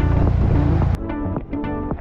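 Buggy engine rumble with a rushing splash of water and wind on the microphone as it drives through a shallow crossing. About a second in it cuts off abruptly, replaced by background music of plucked notes.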